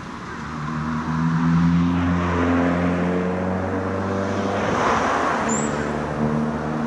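Road traffic passing close by: a steady low engine hum builds over the first second or so, then a broad rush of tyre and engine noise peaks as a car goes past about five seconds in.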